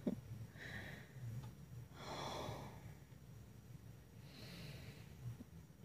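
A woman breathing softly: a few quiet breaths, the longest and fullest exhale about two seconds in.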